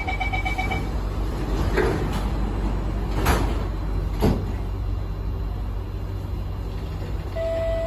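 MRT train door warning chime beeping briefly, then the sliding carriage doors thudding shut about three seconds in, with softer knocks just before and after, over the carriage's steady low hum. Near the end a steady electric whine starts as the train begins to pull away.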